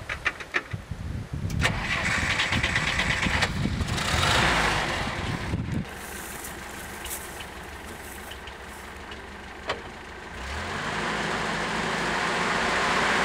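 GAZ-69 jeep's four-cylinder engine being cranked by the starter and catching, after a few clicks and knocks from the cab. It then runs at a steady idle and grows louder about ten seconds in.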